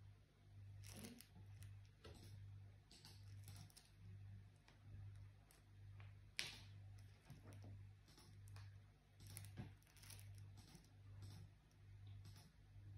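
Faint clicks and rustles of a dachshund puppy chewing and mouthing her rope and plush toys in a fleece bed, with one sharper click about halfway through. A low hum pulsing about twice a second runs underneath.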